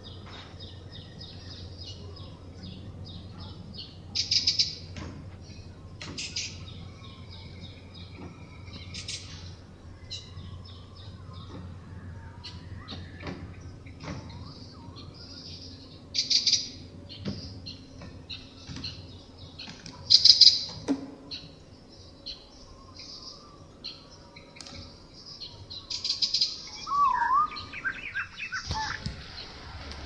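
Small songbirds chirping and twittering in a steady stream of short, high calls, with louder bursts of chirps every few seconds and a lower, sliding call near the end, over a faint steady low hum.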